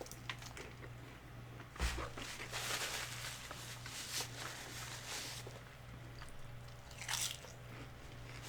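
Biting into and chewing a crispy deep-fried chicken flauta close to the microphone, with crunchy crackling bites in a run a couple of seconds in and once more near the end.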